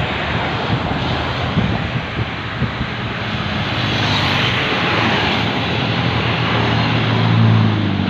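Diesel engines of medium tour buses labouring past on the climb, over road and traffic noise, the low engine hum growing louder toward the end as a bus draws close.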